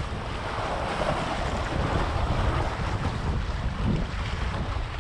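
Wind buffeting the microphone with a low, uneven rumble, over sea waves washing against a breakwater of concrete tetrapods.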